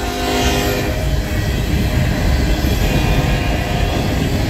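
A long string of Norfolk Southern coal hopper cars rolling past, their steel wheels on the rails making a steady rumble and clatter. A held, pitched tone, horn-like, fades out about a second in.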